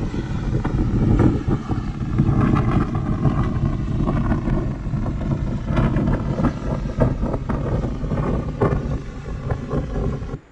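Hurricane wind blasting across a phone's microphone: a loud, steady rumble broken by frequent sharp buffets.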